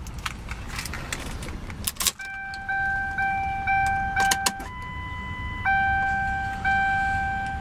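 Keys jingling and clicking at the ignition of a 2006 Ford Crown Victoria, then its dashboard warning chime sounding as the key is turned on with the engine off. The chime comes quickly at about two a second, holds one longer tone of another pitch, then repeats about once a second.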